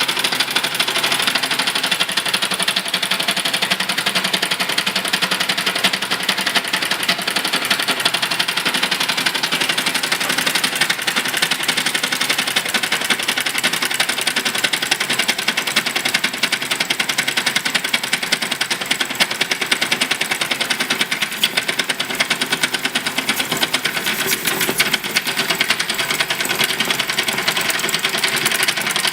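Small model engine running steadily with a fast, even mechanical clatter.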